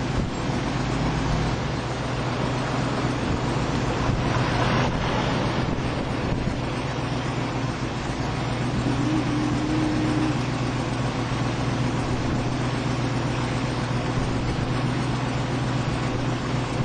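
A motor vehicle running steadily, with a constant low engine hum under its running noise.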